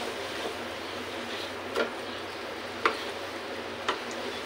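Date paste cooking in ghee in a nonstick pan, stirred with a wooden spatula: a steady soft sizzle with three sharp knocks of the spatula against the pan, about a second apart.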